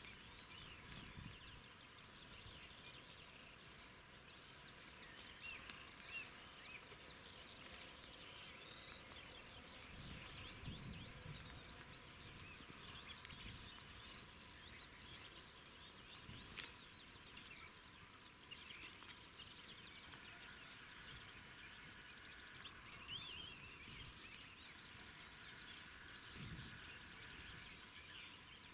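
Faint chorus of many small birds, with short chirps overlapping steadily. In the second half a lower, even trill comes in twice.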